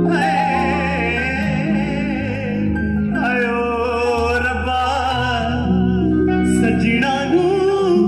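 Live band music: a male singer holds long, wavering notes with vibrato over sustained bass and keyboard.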